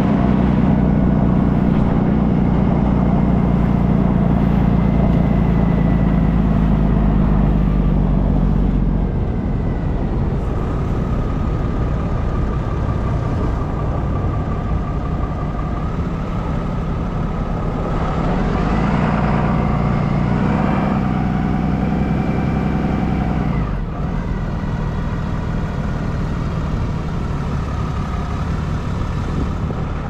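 A pickup truck driving on a snowy road, heard from a camera mounted on its front: steady engine and road noise. It is loudest at the start and again just past the middle, where the engine note rises.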